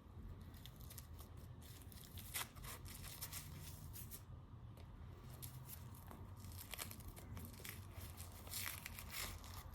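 Faint rustling and crinkling from a jacket and its belt being handled, with a few brief louder scrapes.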